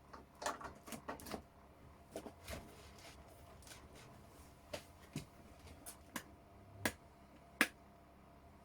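Scattered light clicks and taps at irregular intervals: a quick cluster at the start, then single, somewhat louder clicks spaced about half a second to a second apart in the second half.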